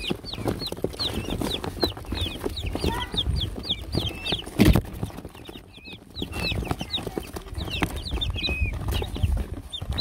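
A box of baby chickens and peachicks peeping continually: many short, high peeps that fall in pitch, several a second. A single loud knock comes about halfway through.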